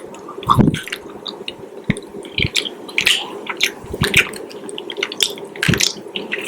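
Close-miked chewing: an irregular string of short wet clicks and squishes.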